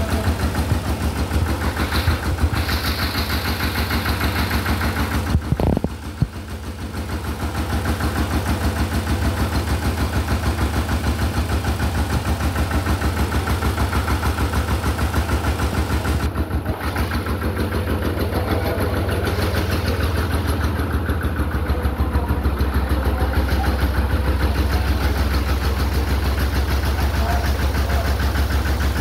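Engine of a home-built sanedo tractor running steadily with a fast, even beat while it drives its spray rig. Its sound dips briefly about six seconds in, then builds back up.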